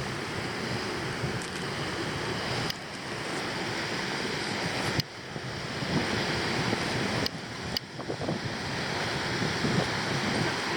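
Surf washing on a beach, with wind on the microphone; the sound changes abruptly a few times.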